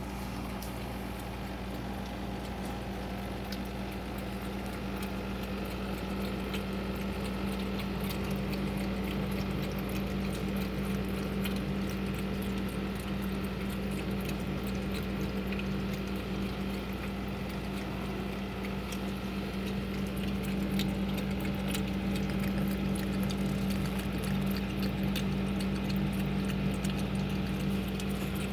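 A cat lapping water, with many small irregular wet ticks over a steady low hum.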